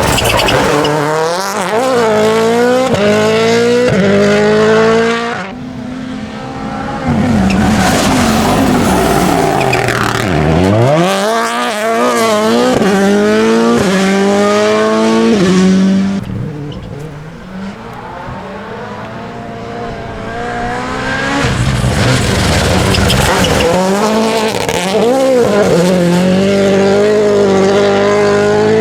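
Rally car engine revving hard, its pitch climbing and dropping again and again with gear changes and lifts, with a deep drop and re-climb about ten seconds in. Twice it falls quieter for a few seconds before coming back up.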